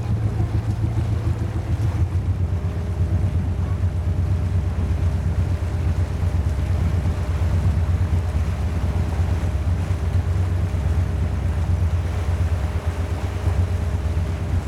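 Wind buffeting the microphone, a loud, fluttering low rumble, with a faint steady hum underneath.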